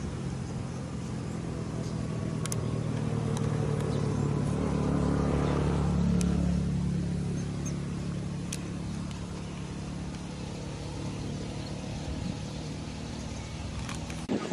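Car engine running with road noise, a steady low hum that swells to its loudest around the middle and then eases off, with a few faint clicks.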